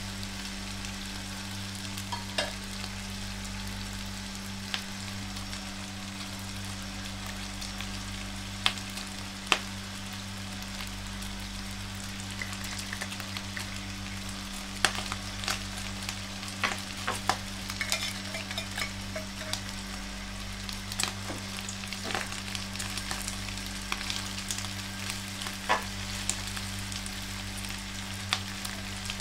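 Diced pork for sisig sizzling steadily as it fries in a nonstick frying pan. A utensil scrapes and taps against the pan now and then, more often in the second half, over a steady low hum.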